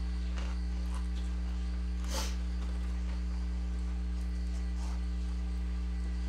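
Steady electrical mains hum, with a few short crackles of powdered tortilla chips being picked up and chewed, the loudest about two seconds in.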